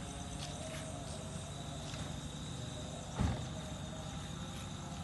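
Night insects chirping and trilling steadily over a low rumble, with one dull thump about three seconds in.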